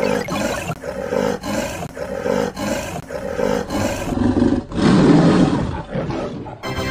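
Tiger growling in a run of short pulses, about two a second, then one longer, louder roar about four to five seconds in.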